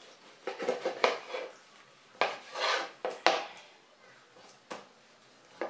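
Kitchen knife slicing raw chicken breast on a plastic cutting board: a handful of irregular knocks and scrapes of the blade against the board, with a longer scraping stroke about two seconds in.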